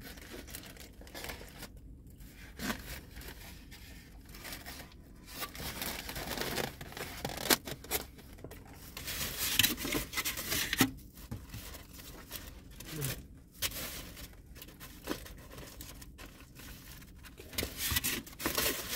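Irregular rustling, crinkling and scraping as a takeout food box and its wrapping are handled, with a few sharper snaps between about six and eleven seconds in.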